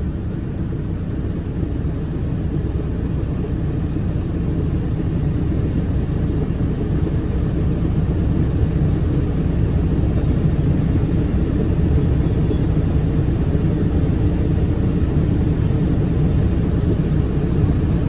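Steady low engine rumble heard from inside a vehicle cab, growing somewhat louder over the first half.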